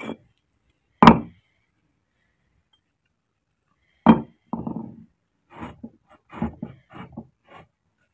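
Loose fired-clay bricks being set down and shifted against other bricks: a sharp knock about a second in, another about four seconds in, then a run of shorter knocks and scrapes.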